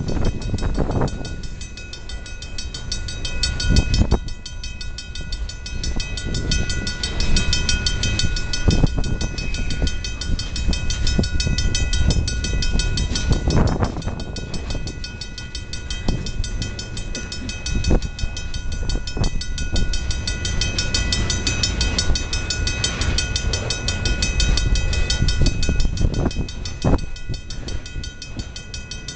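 A freight train of loaded centerbeam lumber flatcars and boxcars rolling through a grade crossing: a steady low rumble of steel wheels, with irregular clunks every few seconds as wheels pass over rail joints. Above it, a crossing bell rings continuously with a fast, even beat.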